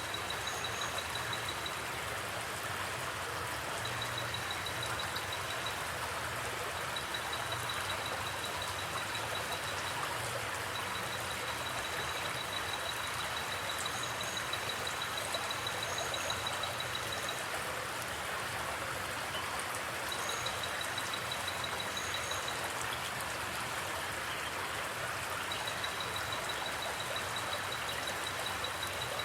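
Flowing creek water rushing steadily. A high, rapid trill comes and goes over it in runs of a few seconds, with a few brief higher chirps.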